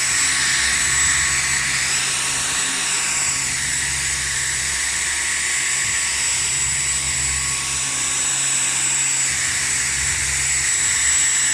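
Dyson vacuum cleaner running steadily: a continuous rush of air with a thin high whine on top.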